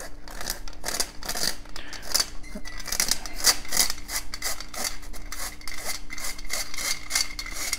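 Hand-crank flour sifter being cranked, its agitator rubbing the flour and dry ingredients through the mesh screen with an even, rhythmic rasping scrape, about four strokes a second.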